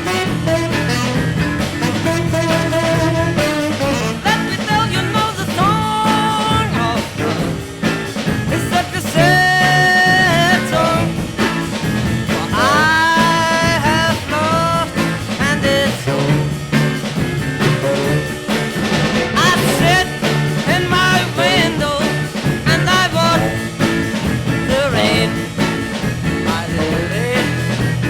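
Studio recording of a 1960s school beat band playing an instrumental passage: a lead melody that glides and bends in pitch over a steady bass and drum beat.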